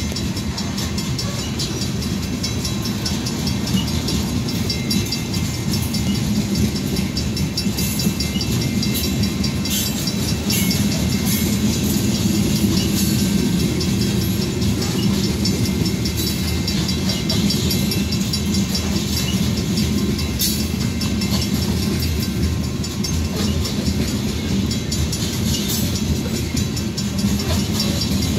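Freight cars of a coal train rolling steadily past close by: a continuous rumble of steel wheels on rail with light clicking.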